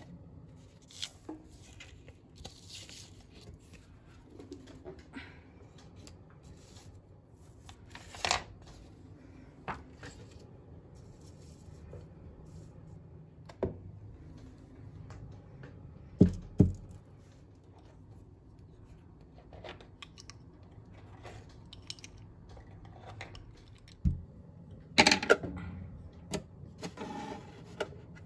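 Small objects such as candles, figurines and a cardboard box being picked up, moved and set down by hand on a shelf: scattered light clicks, knocks and rustling. Two sharper knocks come about 16 seconds in, and a cluster of louder knocks and rustling comes around 25 seconds.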